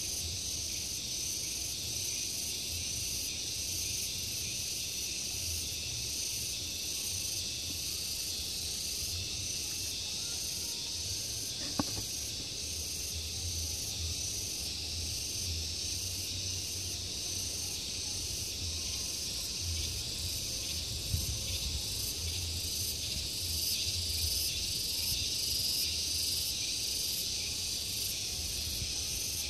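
Steady, high-pitched chorus of insects with a fine rapid pulsing, over a low rumble, with a faint click about twelve seconds in and another about twenty-one seconds in.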